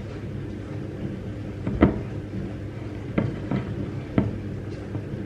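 Wooden spoon stirring flour into a wet dough mixture in a glass bowl, knocking against the glass several times, loudest about two seconds in.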